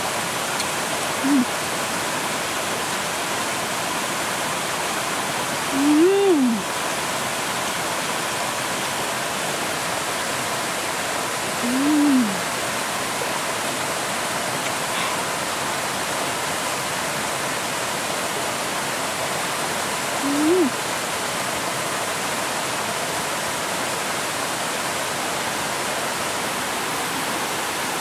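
Steady rush of a shallow stream running over rocks. Four times, a short low tone that rises and falls in pitch stands out above the water.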